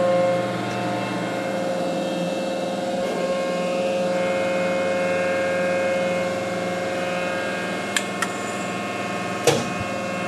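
A Rockford hydraulic planer running under power: a steady hum from its 20 hp three-phase motor and hydraulic drive as the table travels. A few sharp clicks come near the end.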